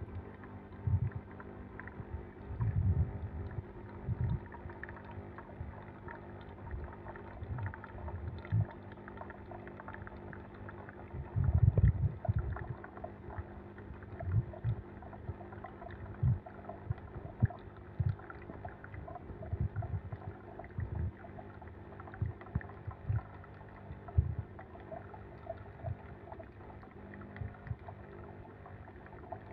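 Nespresso Vertuo Plus coffee machine running its first-use cleaning cycle: a steady pump hum, with irregular low gurgles and spurts of water flowing out into the container.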